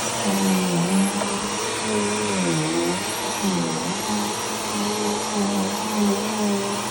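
Bissell PowerForce Turbo Pet vacuum cleaner running steadily: a motor hum over a rush of air, its pitch dipping briefly several times, once about a second in and twice around the middle.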